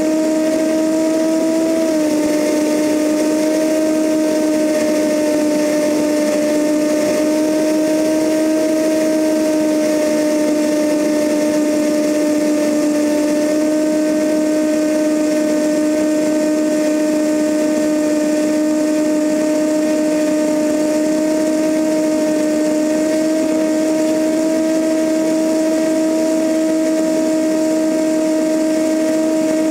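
Cessna 172N's four-cylinder Lycoming engine and propeller in cruise flight, a steady drone with a strong hum, mixed with rushing air past the camera outside the fuselage. The hum drops slightly in pitch about two seconds in, then slowly creeps back up.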